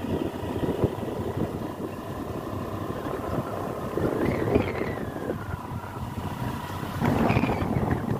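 A vehicle's engine running steadily on the move, with wind buffeting the microphone and a thin steady whine; the rush grows louder about seven seconds in.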